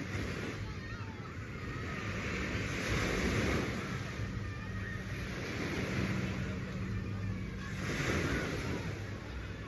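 Waves washing onto a beach in slow swells, with a steady low engine hum underneath.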